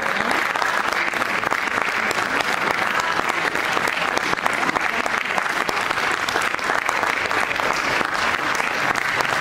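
Theatre audience applauding for the cast at a curtain call: dense, steady clapping of many hands.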